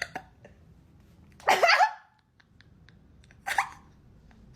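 A woman burping twice: a short burp about a second and a half in that slides up in pitch, and a shorter one about three and a half seconds in.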